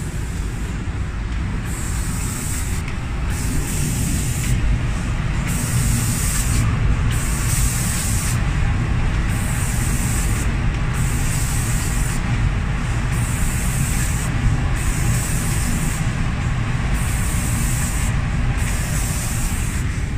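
Automatic paint spraying machine for wooden doors running: a steady low rumble with a high hiss of the spray guns that cuts out briefly about every two seconds.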